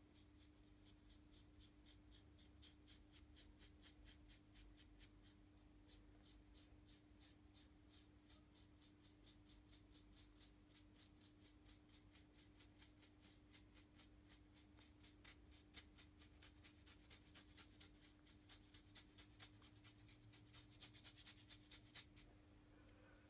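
Faint, quick scratchy strokes, about four a second, of a brush dry-brushing paint over a carved foam wall; the strokes grow louder near the end, then stop.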